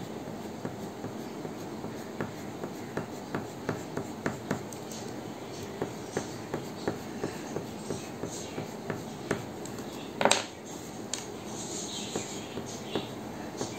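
Green colouring stick scratching across paper in quick, short strokes, about two or three a second, with one louder knock about ten seconds in.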